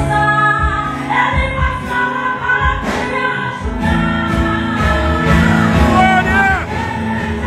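Live amplified gospel worship music: a woman sings lead into a microphone over a band with electric guitar, holding wavering notes near the end.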